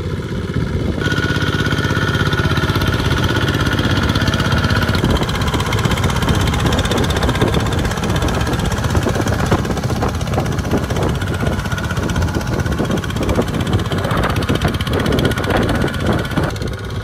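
Two-wheel walking tractor's single-cylinder diesel engine chugging steadily under heavy load as it hauls a loaded rice trailer through deep mud. Its tone shifts about a second in and again a few seconds later.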